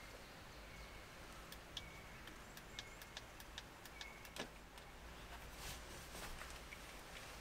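Near silence with scattered faint light clicks and a few short, high chirps.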